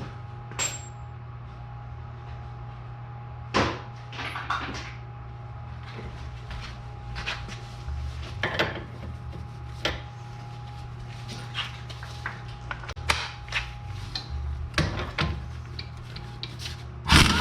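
Scattered metallic clinks and knocks of hand tools and steering parts being handled, a dozen or so irregular strikes with a louder cluster near the end, over a steady low hum.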